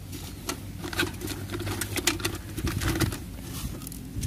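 Plastic toy cars clattering and knocking together in a pail as it is handled and carried, a run of irregular clicks.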